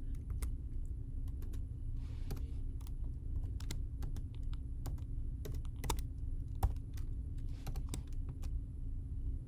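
Typing on a computer keyboard: irregular, quick keystroke clicks with short pauses between them, over a steady low hum.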